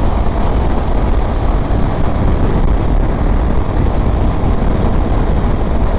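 Honda CB500X motorcycle riding at highway speed: a steady rush of wind over the microphone, with the parallel-twin engine and tyre noise underneath.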